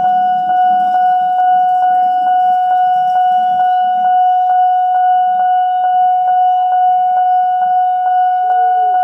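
Railway level-crossing warning siren sounding continuously: one steady high tone, pulsing about twice a second.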